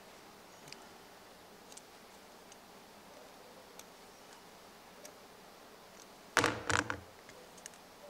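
Faint small clicks and rustles of hands working thin wire ends, then a short clattering knock about six and a half seconds in as a pocket knife is set down on the wooden workbench.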